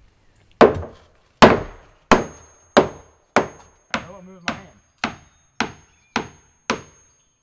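Hammer blows on wooden framing: eleven sharp strikes about 0.6 s apart, the first few the loudest.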